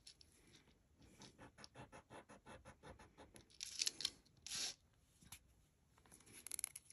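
Faint quick scratching, several strokes a second, with a few louder scrapes about four seconds in: a chain marked sterling 925 being rubbed for a precious-metal test.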